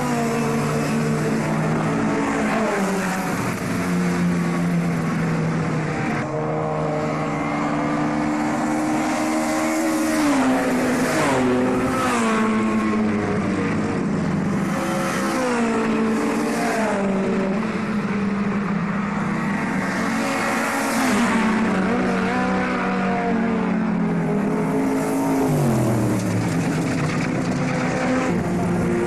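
Historic racing saloon cars, a Ford Mustang among them, going past at speed one after another, their engine notes climbing and then dropping again and again as they accelerate, change gear and pass.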